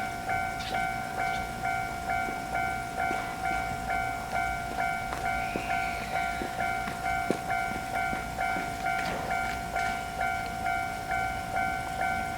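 Japanese railroad crossing alarm ringing its steady "kan-kan": one tone struck over and over at an even pace, a little under two times a second.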